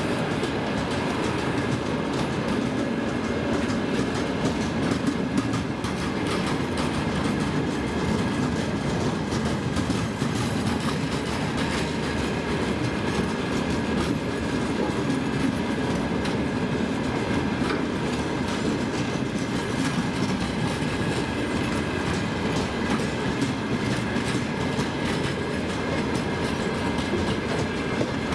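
Freight train rolling steadily past, its wagon wheels clattering over the rail joints in a continuous clickety-clack.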